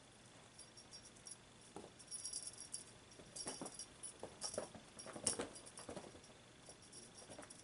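Kitten pouncing and scampering on carpet after a feather wand toy: a run of light thuds, scuffs and rattling clinks. They are busiest in the middle seconds, with the sharpest knock about five seconds in.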